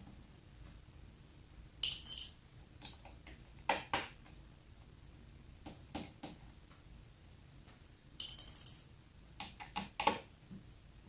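Tiny laptop display screws being removed and set aside: two short bursts of small metal pieces clinking as they drop onto a hard surface, about two seconds in and again near the end, with scattered small clicks and taps from handling between.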